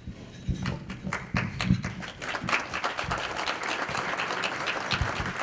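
Audience applauding: many hands clapping in a dense patter that swells about half a second in and keeps going.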